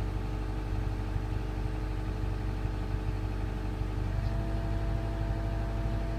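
Diesel engine of a Grove GMK5120B all-terrain crane running steadily, heard from the operator's cab. About four seconds in the hum shifts and a higher steady whine joins.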